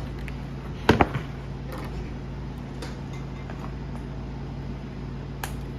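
Scissors and box packaging being handled: two sharp clicks close together about a second in, then a few faint ticks, over a steady low hum.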